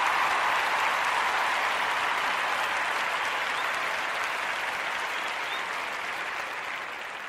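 Crowd applauding, a dense even clapping that fades gradually toward the end.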